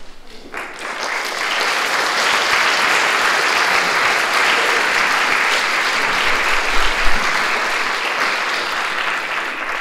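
Audience applauding, building up over the first second or so, holding steady, and easing off near the end.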